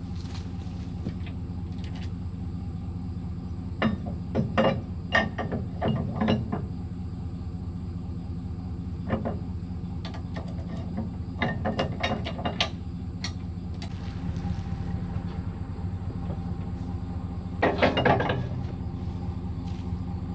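Vehicle engine running steadily, with bursts of rattling and clunking about four to six seconds in, again around nine and twelve seconds, and a louder burst near the end.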